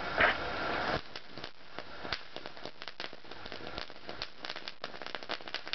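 Rumskibet firework fountain burning on the ground. A steady hissing spray drops away about a second in, and dense crackling pops follow for the rest of the time.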